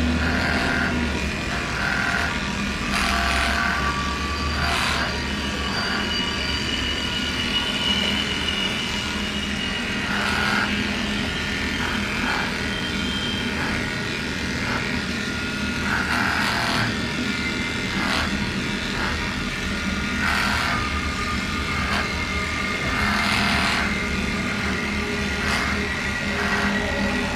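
Electric dog-grooming clippers running with a steady buzz as they shave a dog's coat, with short brushing swishes every second or two as the blade passes through the fur.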